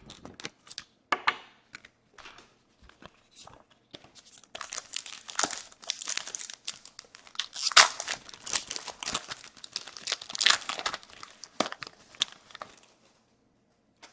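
A hockey trading-card pack wrapper being crinkled and torn open. A few light clicks and rustles come first, then dense crinkling starts about four seconds in and stops near the end.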